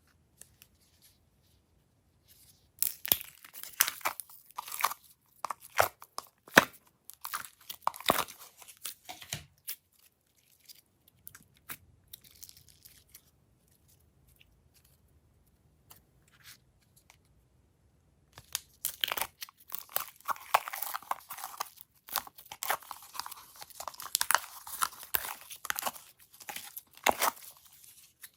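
Hands working slime and its add-ins: crackly, crinkling and tearing noises in two long stretches, the first dying away about ten seconds in and the second starting about eighteen seconds in.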